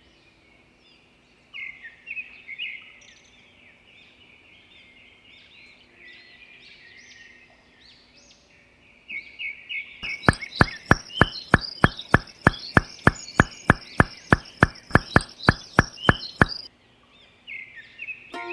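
Small birds chirping throughout. About ten seconds in, a fast, even series of sharp knocks starts, about four a second, and cuts off suddenly some six seconds later.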